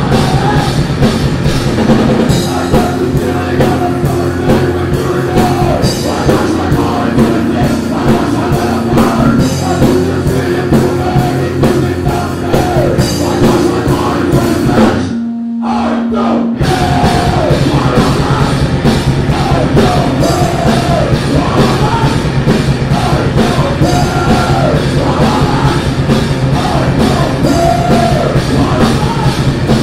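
Heavy metal band playing live, with a drum kit and shouted singing over a dense, loud wall of sound. About halfway through, the band stops short for a second and a half, leaving one held low note ringing alone, then comes crashing back in.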